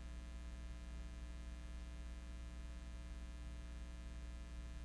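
Faint, steady electrical mains hum with a stack of overtones.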